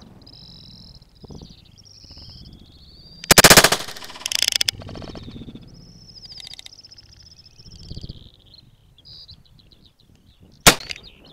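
Small birds calling with high, thin warbling whistles throughout. Two loud rattling bursts of about half a second come around three and four seconds in, and a single sharp shot cracks near the end.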